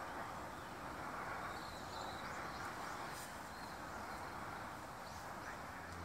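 Steady distant hum of city traffic, with a few faint, high bird chirps about two seconds in.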